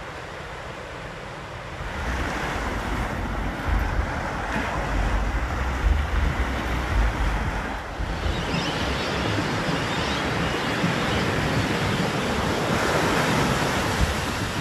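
Ocean surf rushing, with wind buffeting the microphone. The rush gets louder about two seconds in and turns hissier around eight seconds.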